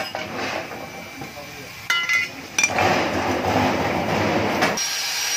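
Cut pieces of a steel motorcycle muffler's gutted baffle clinking and clattering as they are handled, with two sharp ringing clinks about two seconds in, then a rougher clatter. A thin, steady high tone starts near the end.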